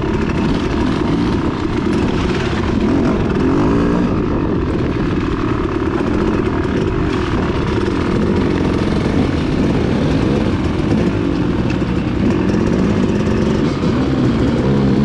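Dirt bike engine running hard close by, its pitch rising and falling as the throttle is worked on a trail ride.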